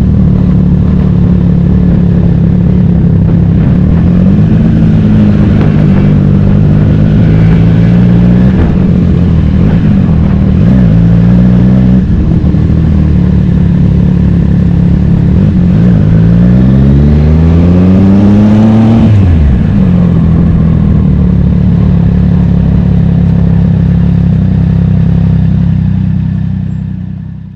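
Racing motorcycle engine running hard and mostly steady, with small pitch changes. From about 16 s it revs up steadily until it drops off sharply near 19 s, then runs on at a steady pitch and fades out at the end.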